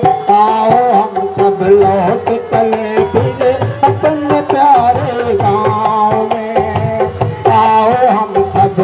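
Instrumental break of a Hindi folk song: hand drums keep a quick beat under a wavering melody line.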